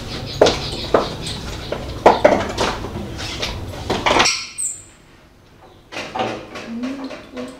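Irregular sharp clicks and knocks over a steady background hiss, cutting off suddenly about four seconds in. A few fainter knocks follow near the end.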